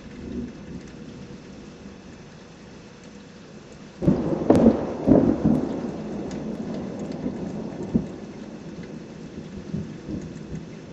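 Steady rain falling, then a thunderclap about four seconds in: several loud crashes in quick succession, a rumble that fades over the next few seconds, and one more sharp crack near the end of the rumble.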